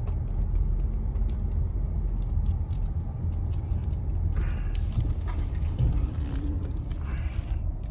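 A car driving slowly, heard from inside the cabin, with a steady low rumble of engine and tyres.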